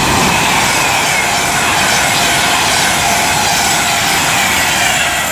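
Class 390 Pendolino electric multiple unit passing close by without stopping: a loud, steady rush of wheels on rail and air, with faint tones that slowly fall in pitch as it goes by.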